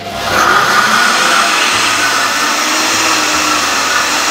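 Salente Mixi 2L cooking blender running on its grind program, its blade puréeing a hot sauce of cooked vegetables and cream. The motor starts right at the beginning and runs loud and steady.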